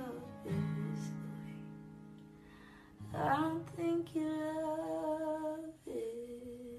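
A woman singing softly over slow strummed acoustic guitar chords. A chord rings out about half a second in and fades, the voice comes in with another chord about three seconds in and holds long notes, and a new chord is struck near the end.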